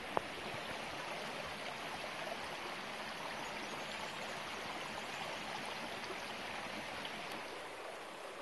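Shallow creek water running steadily over rocks. One sharp click sounds just after the start.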